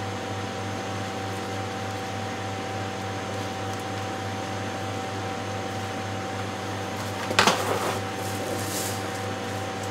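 Electric fan running with a steady hum, and a brief clatter about seven and a half seconds in.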